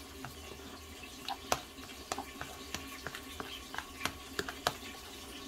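Metal fork mixing grated cheese and dill in a plastic dish: irregular light clicks and scrapes of the tines against the dish, over a faint steady hum.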